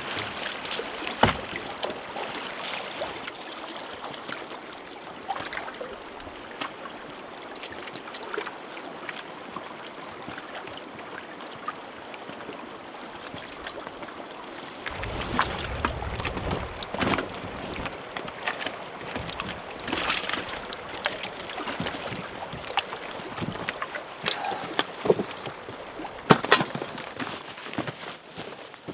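Small lake waves lapping and sloshing against shoreline rocks and the hull of a beached canoe, with wind. From about halfway through, a low rumble and a series of sharp knocks and thuds, as gear is handled and carried over rock.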